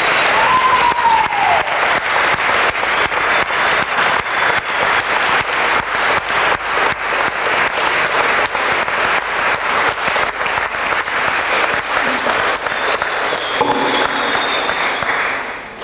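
Audience applauding, dense and steady, dying away at the end.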